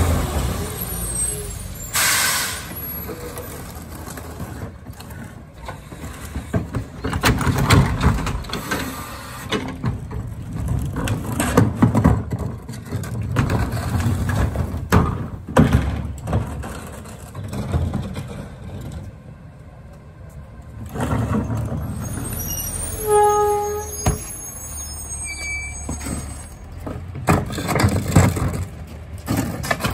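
A CNG McNeilus rear-loader garbage truck at work: its engine runs under repeated clattering and crunching of trash. An air brake hisses about two seconds in, and a short pitched tone sounds about three-quarters of the way through.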